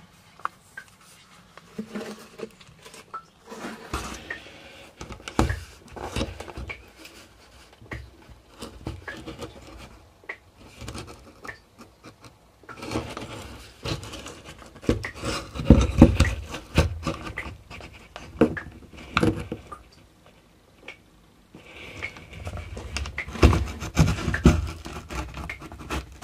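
Irregular scraping, scratching and knocking as a handheld camera is pushed about against the rough fibreglass inside a boat hull's hollow section. The loudest bumps come about halfway through and again near the end, with a couple of brief quiet pauses.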